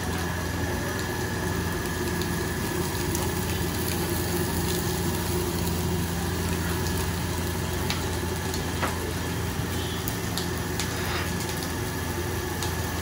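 Steady roar of a gas burner under a wok, with a constant low hum and faint frying sizzle, broken by a few light clicks.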